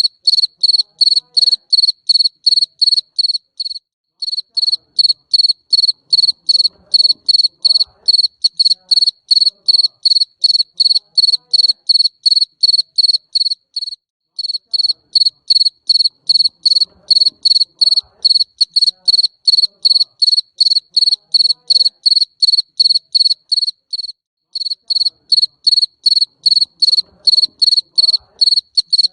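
Cricket (a Javanese 'jangkrik mbering raja') chirping steadily, about two to three high-pitched chirps a second, with a brief pause roughly every ten seconds.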